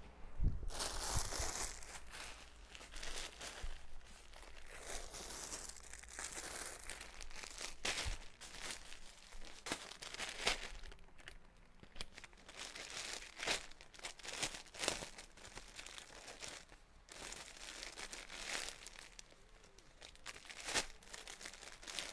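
Plastic wrapping and clothes crinkling and rustling as they are handled, in irregular bursts with a few light knocks.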